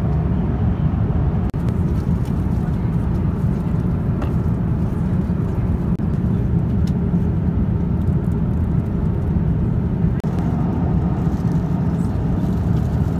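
Steady low rumble of a jet airliner cabin in flight: engine and airflow noise.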